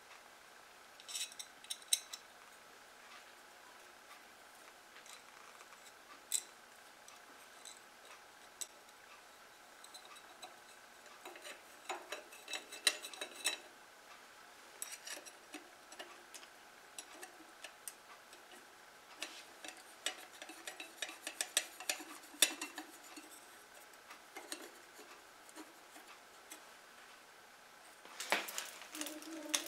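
Scattered light metallic clicks, clinks and scrapes of a small sheet-metal guard plate being handled and screwed onto the bandsaw's motor end, with a denser run of scraping near the end as it is fastened.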